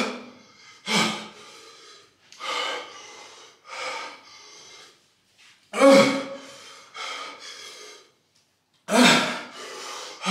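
A man's voice in a series of loud, wordless gasps and groans, about seven in all, one every second or two. He is reacting to the burn of the extremely hot chili chips he has just eaten.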